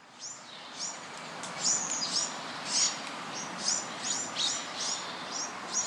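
Birds chirping: short, high, downward-sweeping notes repeated in quick succession over a steady background hiss.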